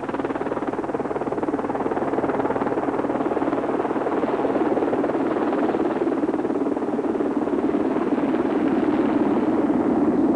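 Westland Sea King HAR3 search-and-rescue helicopter approaching and coming overhead, a steady rush of rotor chop and turbine noise that slowly grows louder.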